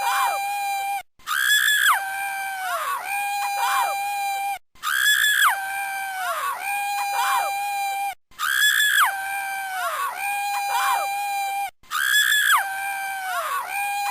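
Scream sound effect on a loop: a high shriek that falls in pitch, then a long held lower cry, the same sequence repeating about every three and a half seconds with a brief silence between each.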